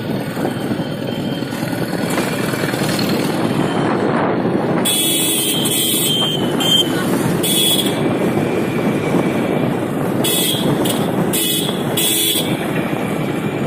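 Riding a Suzuki GS150R single-cylinder motorcycle through busy traffic: steady engine, wind and road noise. Vehicle horns beep in a string of short blasts from about five seconds in, and again from about ten seconds in.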